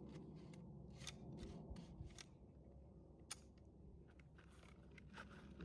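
Faint, irregular metallic clicks and rattles of a firearm and its magazine being handled, with cartridges being loaded; no shots are fired.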